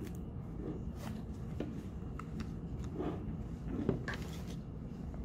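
Scattered light clicks and rustling from a rubber protective mask's head harness straps and buckles being handled and turned over, over a steady low background hum.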